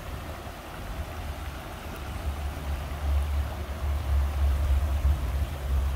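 Steady rush of flowing creek water, with a low rumble underneath that grows louder from about two seconds in.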